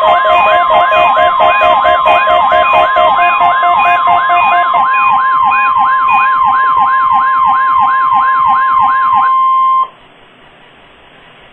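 NOAA Weather Radio's steady 1050 Hz warning alarm tone, sent for the Required Monthly Test, sounding together with a weather radio receiver's alert siren warbling up and down about two and a half times a second, plus a pulsed beeping that stops about halfway. All of it cuts off suddenly near the end, leaving a faint radio hiss.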